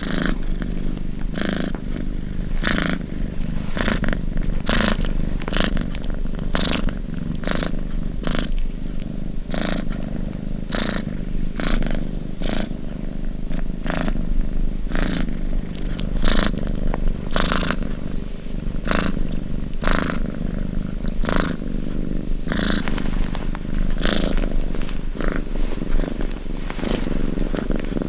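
Domestic cat purring: a steady low rumble throughout, with a breathy rasp on each breath about once a second.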